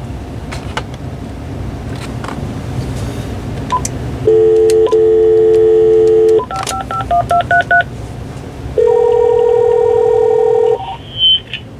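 Cordless phone base on speakerphone dialing out: a dial tone for about two seconds, then a quick run of touch-tone (DTMF) digit beeps, then about two seconds of ringback tone as the call rings through to the answering machine. A short high beep comes near the end.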